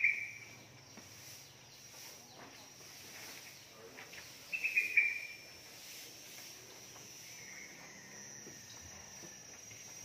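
Two short, high animal calls, one at the start and one about four and a half seconds in, each falling slightly in pitch. Under them runs a steady, high-pitched insect whine.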